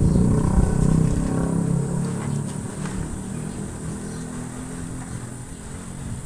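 Small single-cylinder engine of a stripped-down underbone motorcycle running, revving at first and then dropping back to a steadier, quieter idle about two seconds in.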